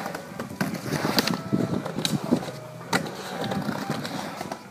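Skateboard wheels rolling and grinding over the wooden surface of a skate bowl, broken by a few sharp clacks from the board.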